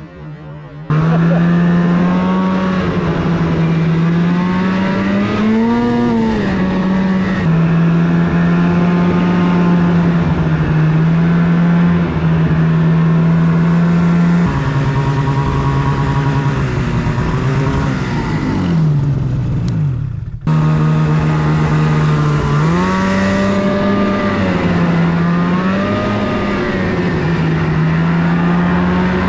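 Snowmobile engine running loud while riding, its pitch rising and falling as the throttle is opened and eased. It starts suddenly about a second in, winds down shortly before a sudden break about twenty seconds in, then runs on with more rises in pitch.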